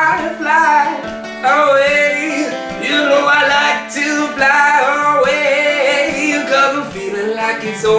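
A man singing with full voice over a strummed acoustic guitar.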